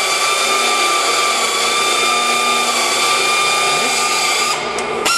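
A machine motor running steadily with a high whine over a loud hiss. It thins out near the end and finishes with a sharp click.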